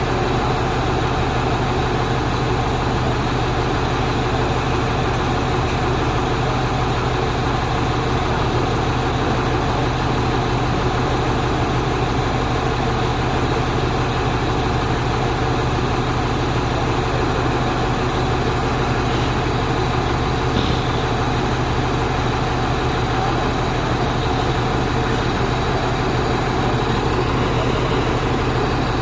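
Truck engine running steadily: a continuous low engine hum with an even noise above it, unchanging throughout.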